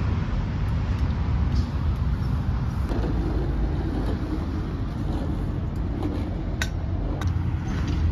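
Steady low rumble of road traffic from a nearby expressway interchange, with a few light clicks near the end.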